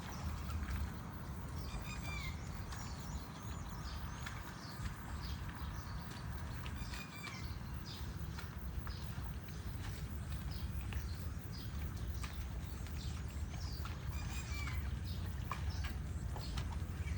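Farmyard ambience: birds chirping in short, repeated calls over a steady low rumble, with scattered light knocks.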